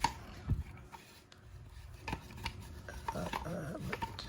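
The Blade Grinder Attachment is being fitted onto a Work Sharp Ken Onion knife sharpener: scattered clicks, a knock about half a second in, and parts rubbing and scraping together.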